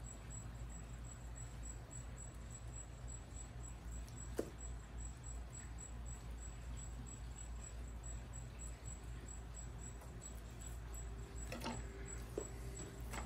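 Faint tapping and rustling of a fine-mesh sieve being shaken to dust cornstarch onto snapper fillets, over a low steady hum, with a few light clicks.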